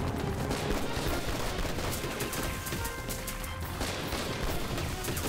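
Battle gunfire: a dense fusillade of rifle shots cracking irregularly, layered over background music.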